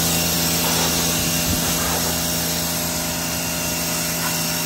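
Pressure washer running steadily: a constant motor hum under the hiss of the water jet spraying a dog's coat and the wet concrete.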